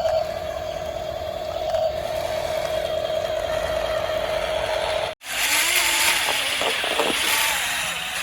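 Small electric motor of a radio-controlled toy running with a steady whine. After a sudden cut about five seconds in, a noisier scraping hiss with a wavering tone follows.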